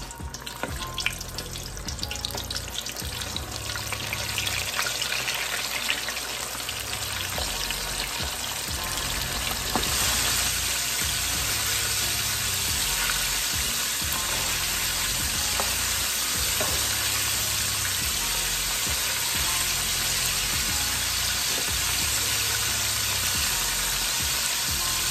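Flour-dredged chicken pieces frying in hot oil: a dense, crackling sizzle that grows louder over the first ten seconds or so and then holds steady.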